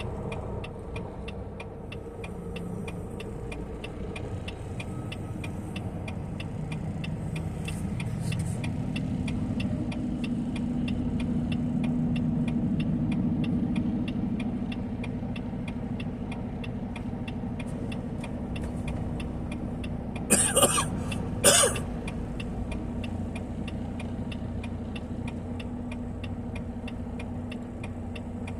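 Semi truck's diesel engine idling steadily, its note rising a little for a few seconds about a third of the way in, with a fast, even ticking throughout. Two short, loud hisses come about two-thirds of the way through.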